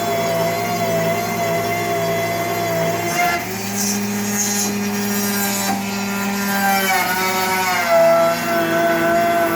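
CNC router's spindle running at around 10,000 RPM, a four-flute end mill rough-cutting wood, with a steady whine. The machine's axis-drive motors add lower tones that shift and glide in pitch as the gantry changes speed and direction, a little after three seconds in and again around seven to eight seconds.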